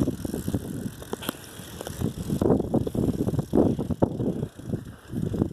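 Bicycle rolling over a rough, bumpy trail, rattling in quick irregular knocks as it jolts along.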